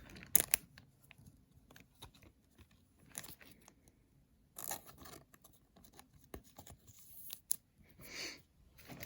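Trading cards being slid into plastic penny sleeves: brief rustling and scraping of thin plastic, with scattered clicks and taps as cards are handled.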